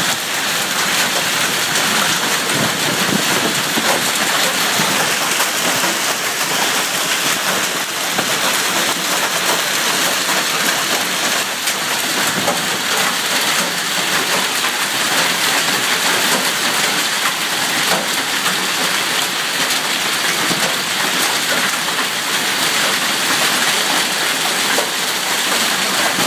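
Hail storm: hailstones and rain pelting the lawn, pavement and parked cars in a dense, steady clatter.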